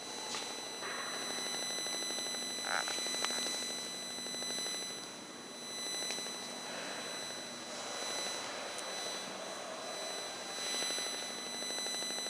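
Steady background hiss with faint, thin high-pitched tones running through it and a few soft clicks: room tone in a quiet space.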